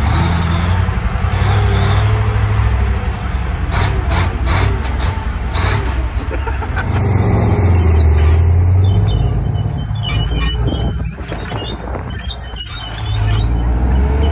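Large heavy-vehicle engine running with a deep, steady low drone, heard from inside the cab; the sound changes about halfway through and again near the end.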